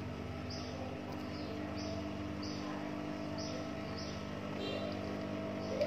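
JUKI industrial sewing machine running as a short edge seam is stitched: a steady motor hum.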